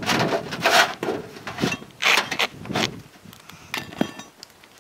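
Metal roof flashing scraping against asphalt shingles as it is worked up underneath them: about five short scraping strokes, then quieter, with a single click about four seconds in.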